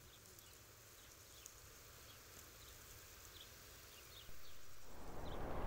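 Quiet winter outdoor ambience with faint, short, high chirps of small birds repeating every half second or so. About four seconds in, a louder steady rushing noise comes in.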